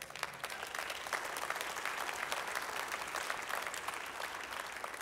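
Audience applauding, building up in the first second and tapering off near the end.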